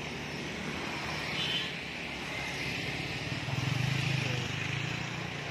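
Passing road traffic: a steady hum of engines and tyres, with a vehicle going by close and loudest from about three and a half to five seconds in.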